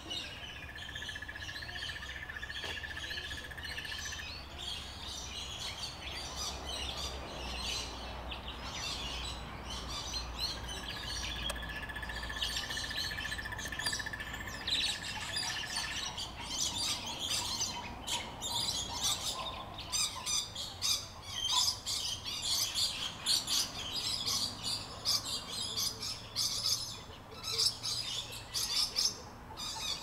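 Many aviary birds chirping and calling, growing busier and louder about halfway through with sharp, punchy calls. Twice in the first half a steady high whine is held for several seconds.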